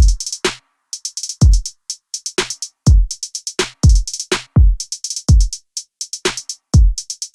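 Background electronic music with a drum-machine beat: deep kick drums that drop quickly in pitch, under quick runs of hi-hat ticks.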